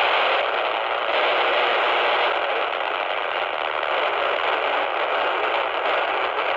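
Handheld FM CB radio receiver giving out steady static hiss with no station coming through, a faint steady high whistle running under the noise.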